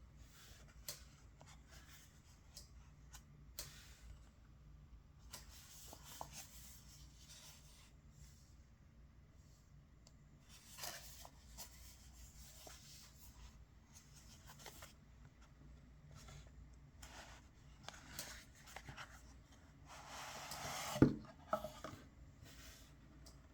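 Pocket-knife packaging being handled and opened by hand: scattered rustles, scrapes and small clicks, with one louder knock near the end.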